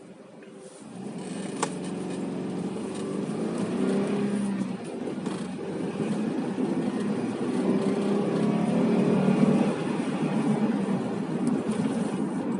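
Car engine and road noise heard from inside the cabin as the car gets moving, growing louder about a second in. The engine note swells twice, as if accelerating through the gears, with one sharp click early on. The car has not yet warmed up.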